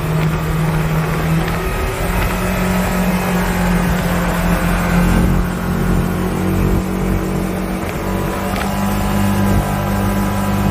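Engine of a side-by-side UTV running steadily at cruising speed, heard from inside its open cab with wind and road noise. The engine note steps up slightly about two seconds in.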